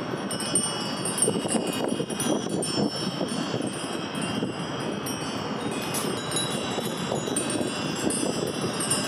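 A large array of small hanging metal wind bells chiming in the breeze: many overlapping high, ringing tones striking at random, over a steady background hiss.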